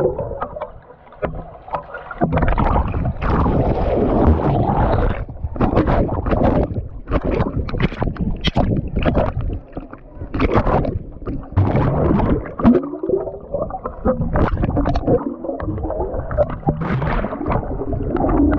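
Swimming-pool water splashing, sloshing and gurgling right at the microphone, in irregular surges, as the camera is moved in and out of the water.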